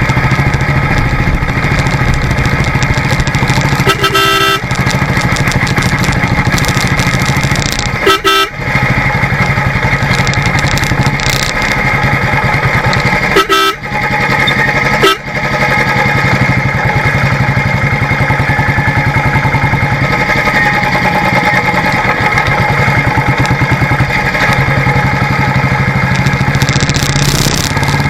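Royal Enfield Classic single-cylinder motorcycle engine running steadily under way. A horn beeps briefly four times in the first half.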